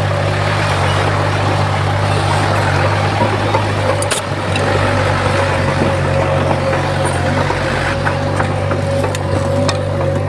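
Heavy diesel earthmoving machine running steadily under a constant low drone with a steady whine above it, with scattered sharp metallic clanks, the loudest about four seconds in.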